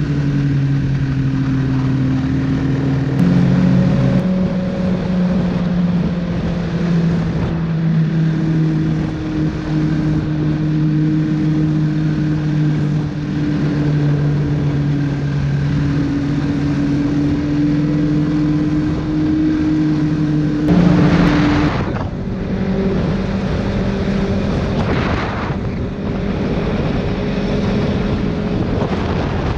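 Snowmobile engine running steadily while riding along a trail, heard from the rider's seat. Its pitch steps up a few seconds in and shifts again about two-thirds of the way through, where a short loud rush of noise comes in.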